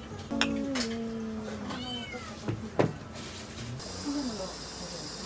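A drawn-out vocal call, about a second and a half long, sliding slightly down in pitch, then two sharp knocks. A steady high hiss comes in near the end.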